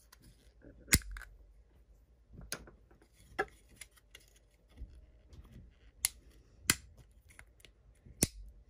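Print supports snapping off a 3D-printed plastic part by hand: a series of sharp cracks and clicks with pauses between, the loudest about a second in.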